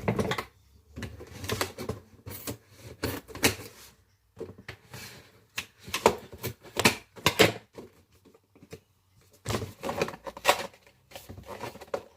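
Headphone box being opened and handled by hand: an irregular run of taps, knocks and rustles of packaging, with short pauses between them.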